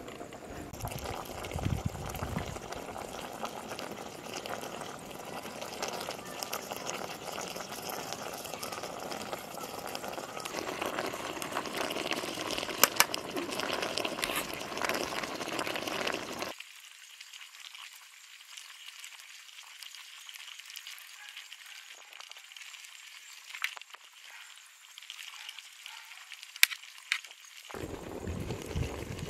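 Pot of pumpkin pieces simmering on the heat, a steady bubbling hiss, with a few sharp clicks; the sound turns thinner and quieter a little past halfway.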